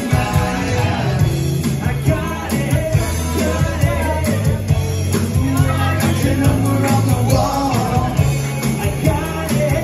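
Live rock band playing through a bar PA: electric guitars, bass and drums with a steady beat, and a male lead vocal singing over them.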